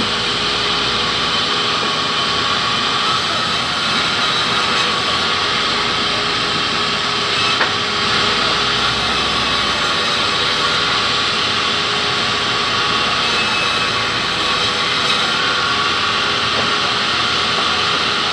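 Large vertical sawmill band saw running steadily and ripping a hardwood log lengthwise, a constant loud whine and rasp of the blade cutting through the wood.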